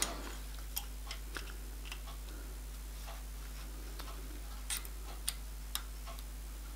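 Scattered light metallic clicks and taps of small steel parts being handled on a cast-iron drill press table, about seven of them at uneven intervals over a steady low hum.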